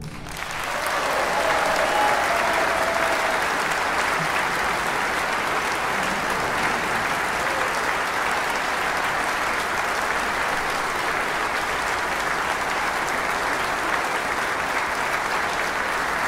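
A large audience applauding, the clapping swelling over the first second or two and then holding steady.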